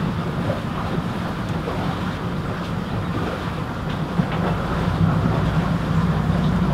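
Catamaran's engines running steadily under way: a low, even drone, a little louder in the second half.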